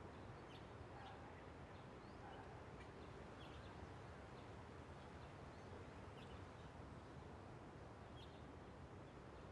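Near silence: faint outdoor ambience, a steady low hiss with a few scattered faint, brief high bird chirps.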